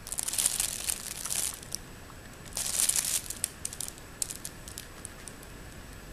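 Crinkly nylon fabric of a cat play cube rustling under a lying cat's paw and body: two bursts of crinkling, the second about two and a half seconds in, then a few light scattered ticks.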